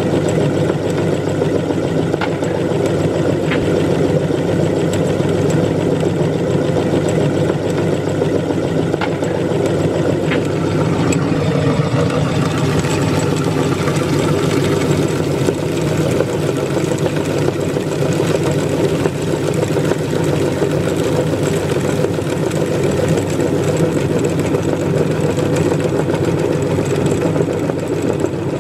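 Electric meat grinder running steadily with a constant motor hum, a few faint clicks in the first half as items pass through.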